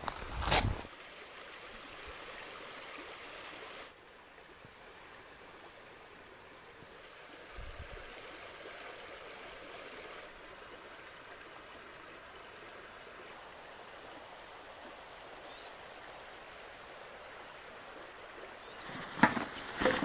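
Mountain stream flowing, a steady rush of water. A few footsteps crunch on gravel in the first second and again near the end.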